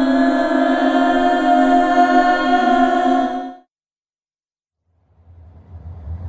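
A horror-style music cue: a steady, sustained droning chord of many held tones that cuts off abruptly about three and a half seconds in. After a second or so of dead silence, a low rumbling drone swells in near the end as the next horror sound effect begins.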